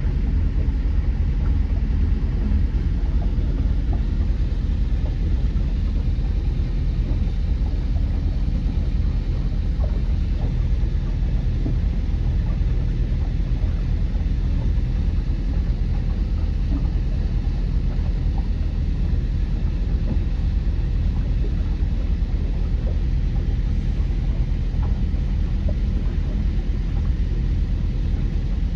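A motor cruiser's engine running steadily under way: a constant, deep engine noise with no changes in speed.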